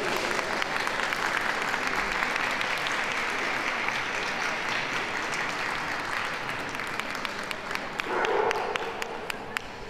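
Audience applauding, a dense steady clapping that slowly thins out, ending in a few separate single claps.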